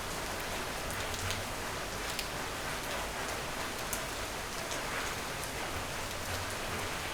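Steady rain falling, an even hiss with scattered sharp drop ticks landing on a surface.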